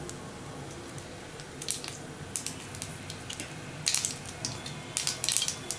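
Mustard seeds spluttering in hot oil: scattered sharp pops over a faint sizzle, coming thicker and faster from about two seconds in. The popping is the sign that the tempering is ready for the curry leaves.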